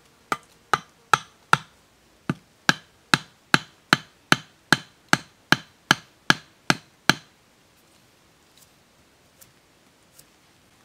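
Machete blade chopping into a thin wooden stick held upright, about seventeen sharp, even chops at roughly two and a half a second with a short pause after the fourth. The chopping stops about seven seconds in, followed by a few faint taps.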